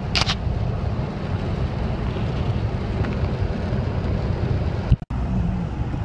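Steady road noise inside a moving car: a low rumble of engine and tyres on wet pavement. The sound cuts out for an instant about five seconds in.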